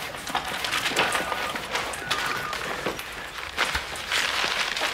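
Papers and folders rustling and being shuffled, with scattered light knocks and footsteps from people moving about and a chair being shifted.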